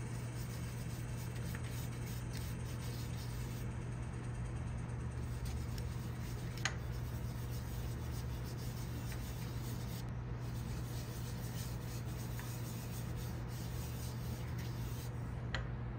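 Wood lathe running with a steady low hum while a bare hand rubs against the spinning walnut bowl, buffing in the finish. One sharp tick about seven seconds in.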